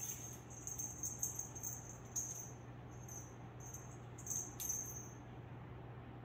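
A pet's collar jingling faintly in short bursts every second or so, stopping about five seconds in, over a steady low hum.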